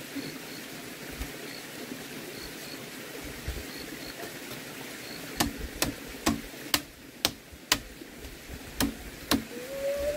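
A series of eight sharp knocks or blows, starting about halfway in, roughly two a second with a short pause before the last two. A brief rising tone starts near the end.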